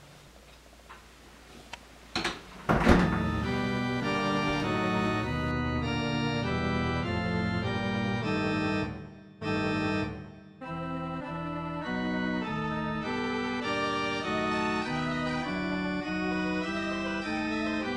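Slow, sustained organ chords begin about three seconds in and drop out briefly twice near the middle. Just before the music starts come a few light knocks and one louder bang.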